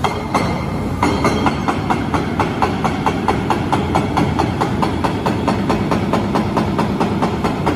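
Excavator-mounted pneumatic hammer chipping at compacted glacial till: a steady rapid pounding of about four to five blows a second, starting properly about a second in after a single first blow, over the low running of the excavator.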